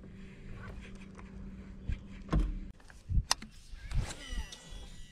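Electric bow-mounted trolling motor humming steadily, cutting off about two and a half seconds in. Several sharp knocks follow, then a baitcasting reel's spool whirs and winds down as a cast is made.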